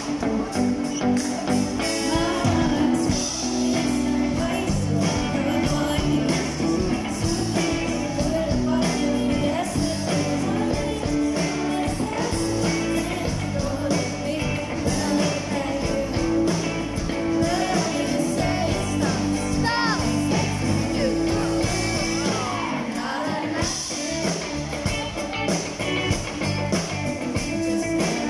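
A live band playing a song: a woman singing over strummed acoustic guitar, electric guitar, bass and a drum kit, played through the stage's amplification.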